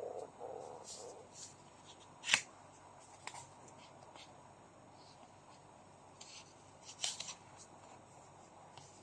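Trading cards and packs being handled: scattered light rustles and clicks, with one sharp snap a little over two seconds in and a short cluster of clicks about seven seconds in.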